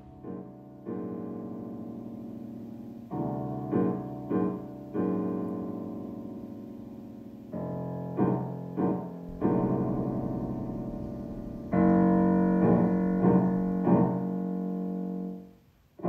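Piano music: sustained chords struck every two seconds or so, each left to ring and slowly fade, with short single notes picked out between them. The last and loudest chord comes about twelve seconds in and is cut off shortly before the end.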